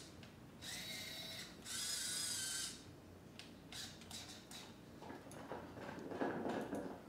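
Hobby servo motors in a robot's shoulder and arm running in two bursts of about a second each, a high gear whine of several stacked pitches, as the arm is driven up. Softer clicks and a rougher rattle follow in the second half.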